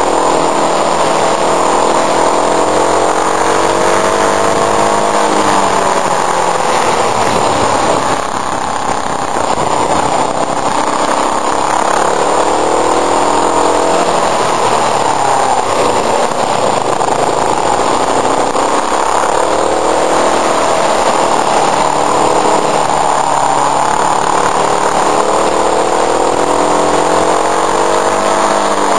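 Motorcycle engine under way, recorded from a camera mounted at the left mirror. Its pitch rises and falls several times as the revs go up and down through the bends, over steady rushing wind noise.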